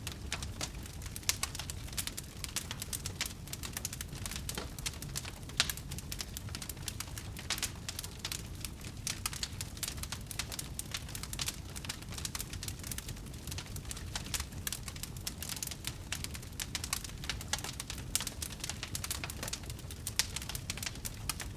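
Large wood fire burning: dense, irregular crackles and pops over a low steady rumble, with one louder pop about five and a half seconds in.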